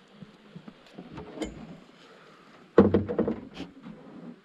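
Knocking and thudding in a small fishing boat: a single knock early on, then a loud thud a little under three seconds in, followed by a quick run of irregular knocks.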